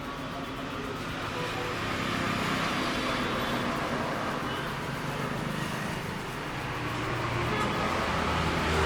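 Steady road-traffic noise: the low hum of passing vehicle engines over a general street rumble.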